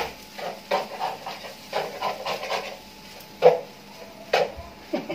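A spatula stirring and tossing fried rice in a frying pan: a string of uneven scrapes and clinks against the pan, the sharpest about three and a half seconds in.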